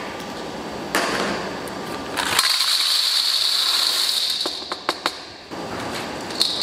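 Caramel-coated roasted almonds poured from a plastic container into a large stainless steel bowl: a dense rattling shower of nuts on metal for about three seconds, ending in a few separate clicks. A steady room hum runs underneath.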